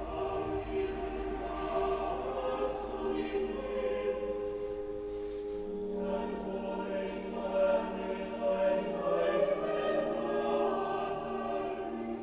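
Choir singing, voices holding long sustained notes, with a break between phrases about six seconds in.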